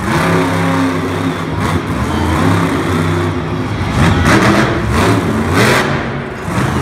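Max-D monster truck's supercharged V8 engine revving hard as the truck rears onto two wheels. The engine pitch steps up and down with throttle, with louder surges around the middle.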